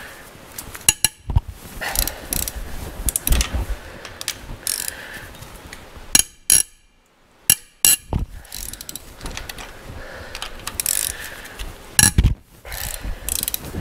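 Ratchet wrench with a 12-point socket clicking in short runs while factory-torqued head bolts on a Toyota 2JZ-GE cylinder head are broken loose, with several sharp metallic knocks.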